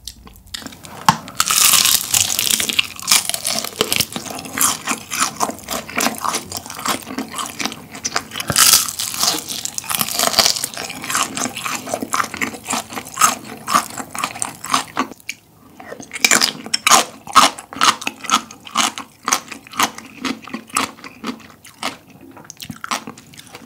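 Close-miked biting and chewing of crispy honey-glazed fried chicken: a dense run of sharp, crisp crunches as the coated skin breaks, with a short pause about two-thirds of the way through.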